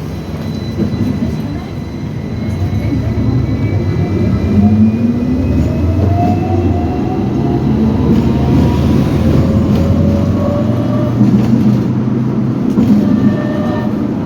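Hong Kong tram running, its traction motor whine rising steadily in pitch as it gathers speed, over a heavy rumble of wheels on the rails.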